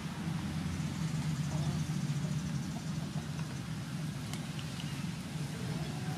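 A steady low engine-like hum, with a few faint crackles a little past the middle as a cooked river prawn's shell is peeled by hand.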